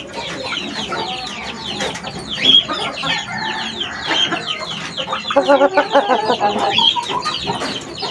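Aseel chicks peeping constantly in a rapid run of short, high, falling chirps. An adult chicken clucks in quick pulses for about a second midway.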